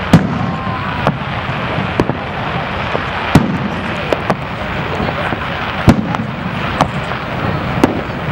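Aerial fireworks bursting, a string of sharp bangs at irregular intervals, roughly one a second, over a steady background hubbub.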